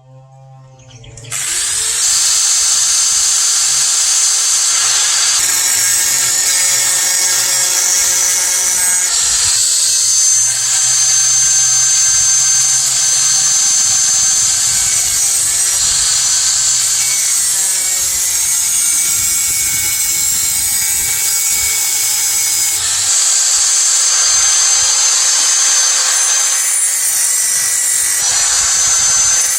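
Electric power tool running under load on metal or wood, a steady high-pitched hissing whine that starts about a second in and shifts slightly every few seconds as the work is pressed and eased.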